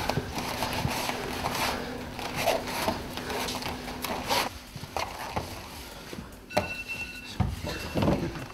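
Two fighters grappling on foam mats: bodies scuffling, feet and clothing rubbing, with heavy thuds about seven and eight seconds in as they go down onto the mat.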